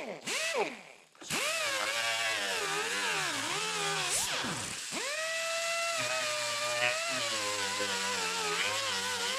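Pneumatic right-angle die grinder with a roll-lock sanding disc, whining with a hiss of air as it grinds the cracked vinyl and foam of an old dash pad. It is blipped on and off a few times at first, then runs continuously, its pitch sagging and wavering as it is pressed into the work. Near the middle it briefly winds down and starts again.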